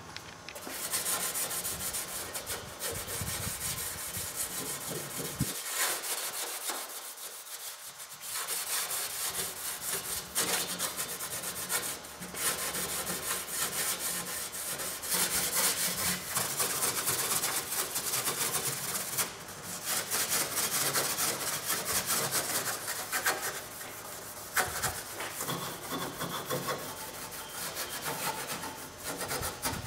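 The underside of a steel cowl hood being scuffed by hand with an abrasive, heard as continuous back-and-forth rubbing strokes with a few brief pauses. The scuffing prepares the surface so the paint will hold.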